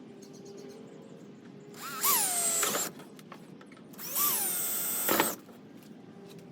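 Power drill with a 1/4-inch bit run in two short bursts of about a second each, drilling holes in an aftermarket front lip spoiler. At each start the motor's whine jumps up in pitch, then settles lower and holds steady until the trigger is released.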